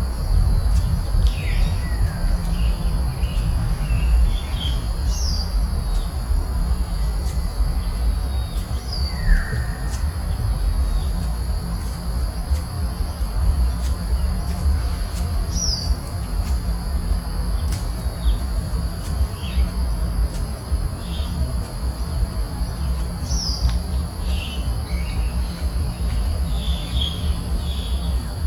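Outdoor ambience: short, descending bird chirps every second or two over a steady, high insect drone and a constant low rumble.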